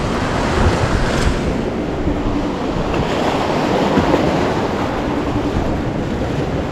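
Ocean surf washing on the shore, steady, with wind buffeting the microphone.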